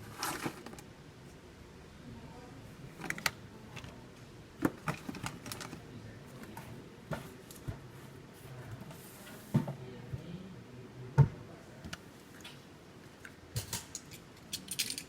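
Irregular light clicks and taps of small hard objects being handled, with one sharper knock about eleven seconds in.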